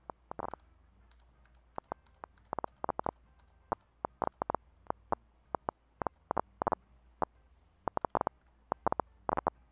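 Action potentials of a single neuron played through the recording software's audio monitor: irregularly spaced sharp pops, a few louder than the rest, getting louder near the end as the electrode is advanced closer to the neuron.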